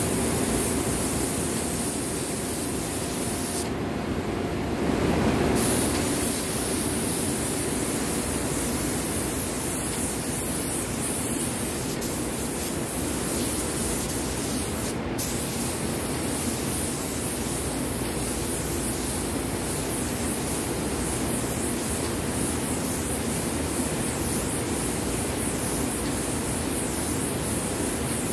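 Hose-fed paint spray gun spraying finish onto a wooden table: a steady hiss of air and atomised paint, briefly dropping out about four seconds in and again for a moment midway.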